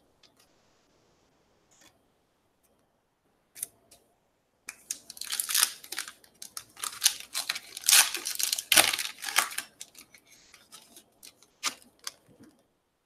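A trading-card pack's wrapper being torn open and crinkled by hand, a dense crackling rustle lasting about five seconds, starting a few seconds in. Light clicks of the cards being handled follow near the end.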